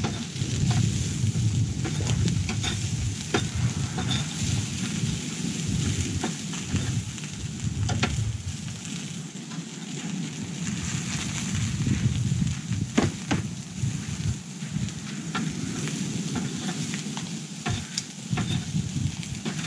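Light clinks and scrapes of cutlery on dishes, scattered irregularly, over a fluctuating low rumble of wind on the microphone.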